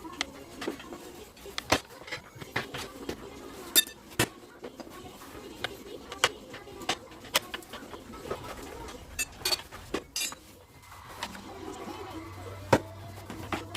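Tyre levers and tools clinking and knocking against a motorcycle wheel rim while a mousse-fitted front tyre is worked by hand: scattered sharp metallic clicks at irregular intervals over quieter handling noise.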